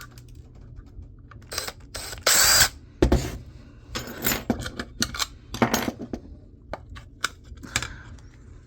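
Small metal hard-drive parts and tools clinking and clattering as a laptop hard drive is taken apart, with a longer metallic rattle about two and a half seconds in and a sharp knock just after, then scattered lighter clinks.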